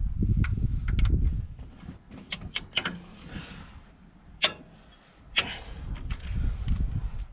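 Sharp metallic clicks from a torque wrench and socket tightening the bottom-end bolts of a Vladimirets T-25 engine set to about 110 N·m, with two louder clicks about four and a half and five and a half seconds in. A low rumble fills the first two seconds and returns near the end.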